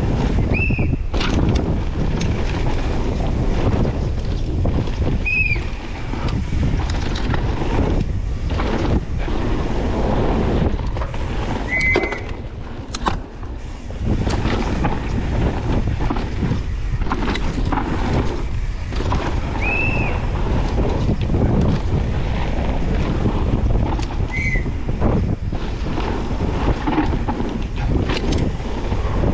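Wind buffeting the microphone while a downhill mountain bike rattles and clatters over a rough dirt trail at speed. Five short, high squeaks cut through the noise.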